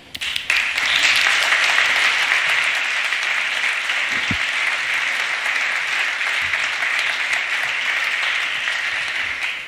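Audience applauding: steady clapping from many hands that starts about half a second in and eases off near the end.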